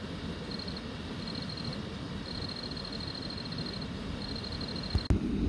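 A small animal's high, rapid trill, repeated in four runs of different lengths, over steady low background noise. A sharp click comes about five seconds in.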